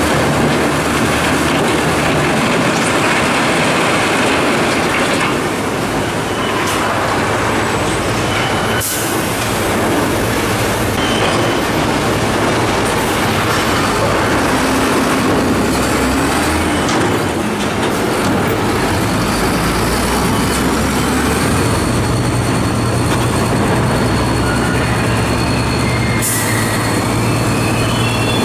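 Heavy Sinotruk HOWO dump truck running its diesel engine hard while tipping, making a loud continuous rumble with a couple of sharp knocks. The engine note shifts about three quarters of the way through.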